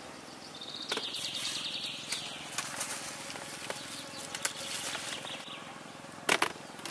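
Cucumbers picked by hand from the vine, leaves and stems rustling with small clicks, then a loud knock near the end as the cucumbers are set down in a woven basket. A brief high, rapidly pulsing trill sounds about a second in.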